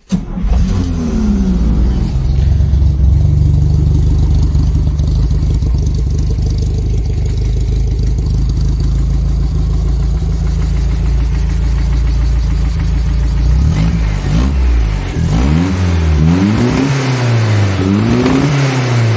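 Nissan A14 1.4-litre inline-four engine firing up on a newly fitted electronic distributor, settling into a steady fast idle, then revved up and down several times near the end.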